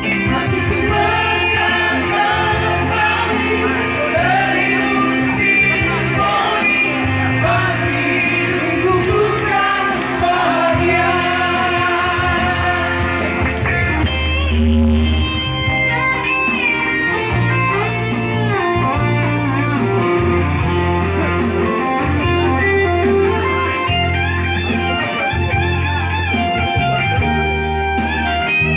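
A singer performing a song over a band led by guitar, with steady low bass notes underneath.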